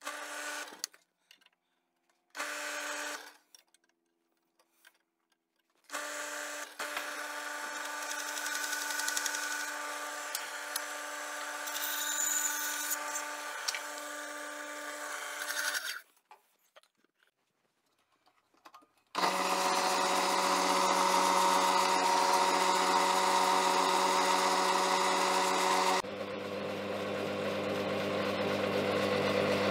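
Restored bandsaw with a metal-cutting blade running and cutting test pieces of acrylic, teak and brass, a steady motor hum under the noise of the blade in the cut. Short bursts near the start, a long cut from about 6 to 16 seconds, then louder running from about 19 seconds that changes abruptly near 26 seconds.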